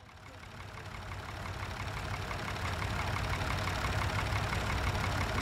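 Fordson Super Dexta tractor's three-cylinder diesel engine running with an even, rapid ticking over a low rumble, fading in from quiet over the first few seconds.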